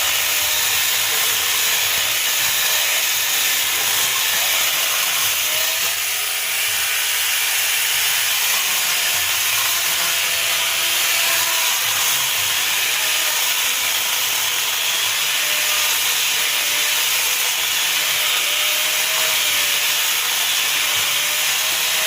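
Electric mini chainsaw running steadily and cutting through wood, its motor tone wavering slightly as the load changes, over a continuous hiss of chain and sawdust.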